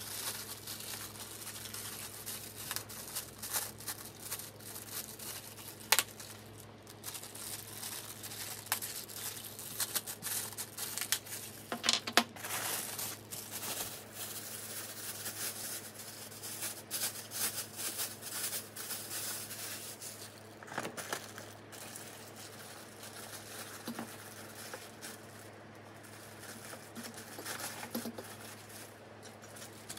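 Clear plastic packaging bags crinkling and rustling as microphone-kit parts are unwrapped by hand, with scattered sharp clicks and a louder snap about six seconds in and another around twelve seconds. A steady low hum runs underneath.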